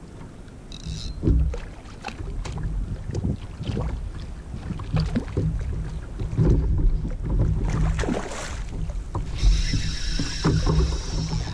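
Wind buffeting the microphone over water lapping and slapping against a plastic fishing kayak's hull, with scattered knocks and clicks. About two seconds before the end, a steady high buzz comes in.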